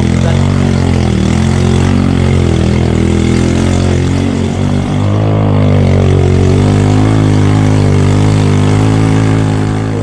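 Small step-through motorbike engine running under the load of two riders, heard close from the pillion seat. Its pitch dips briefly about four seconds in, then it runs a little louder and steady.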